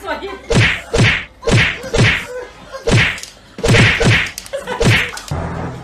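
A quick run of sharp slapping whacks, about eight in five seconds and roughly two a second, matching a cat and a French bulldog swatting at each other with their paws. Music comes in near the end.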